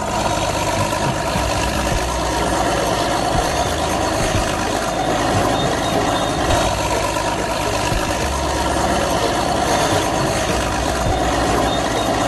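Steady engine-like running noise, as of a motor vehicle idling, even in level with no revving.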